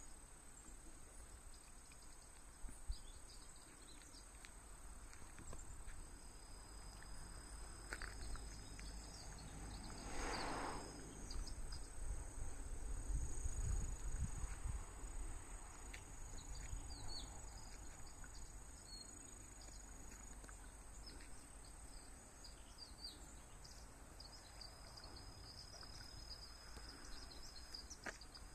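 Autumn crickets and other insects trilling steadily in high, thin tones, over a low rumble that swells briefly from about ten to fifteen seconds in.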